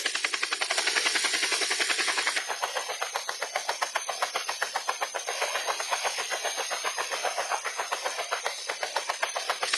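Helicopter in flight: the rotor's fast, even chop over a steady hiss from the engine and airflow.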